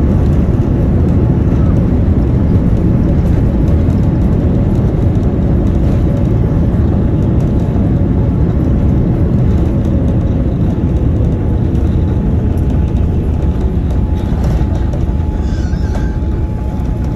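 Airliner cabin noise during the landing rollout: a loud, steady rumble of the aircraft's engines and wheels on the runway, easing a little near the end as the plane slows.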